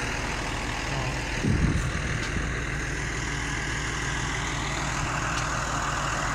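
John Deere tractor's diesel engine idling steadily, with a brief low bump about a second and a half in.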